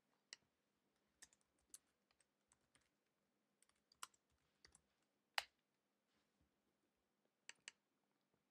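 Faint, irregular keystrokes typing on a computer keyboard, with one sharper click about five seconds in.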